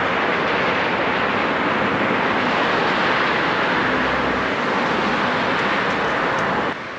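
Steady loud rushing of wind and road noise on a camera moving along a street, starting and cutting off abruptly.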